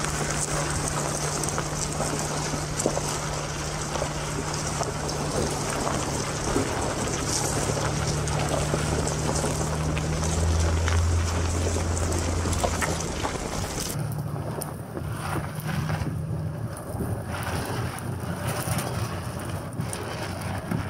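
Nissan Frontier pickup driving slowly over a gravel trail, heard from a camera mounted on its side: a steady low engine drone under the rush of tyres on gravel and wind on the microphone. The engine note and the noise shift about two-thirds of the way through.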